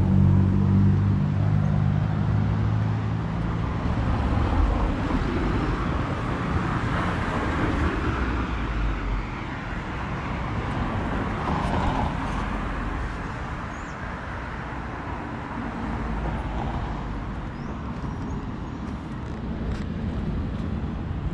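Street traffic. A motor vehicle's engine hum is loudest at the start and fades over the first few seconds. Then the tyre and road noise of another passing car swells and dies away around the middle.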